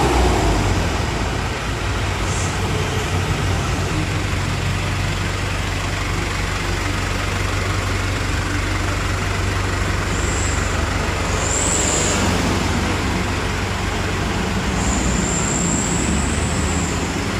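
Hino Dutro truck's four-cylinder diesel engine running steadily at low revs after its fuel injection pump plunger has been adjusted, easing down from a rev in the first couple of seconds.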